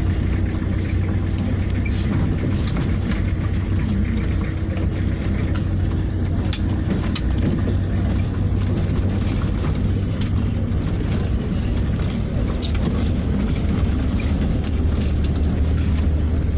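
A vehicle driving along a gravel road, heard from on board: a steady low engine and road rumble, with scattered brief ticks.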